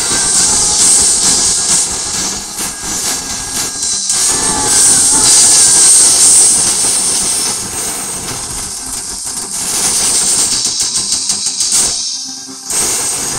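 Live rock band (electric guitars, bass guitar and drums) playing loud, picked up by a phone's microphone so that it blurs into a distorted rushing wash. About twelve seconds in the sound drops out briefly, then comes back.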